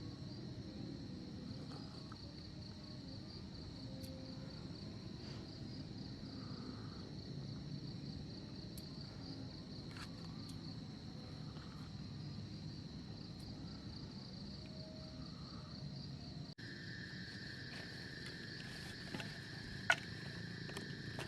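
Forest insects chirring: a steady, rapidly pulsing high trill over a low background hum. About three-quarters of the way through, a second steady insect tone at a lower pitch sets in, and a single sharp click sounds near the end.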